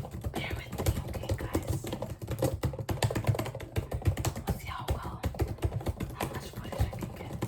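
Close-up ASMR clicking: a rapid, irregular stream of small sharp clicks and taps.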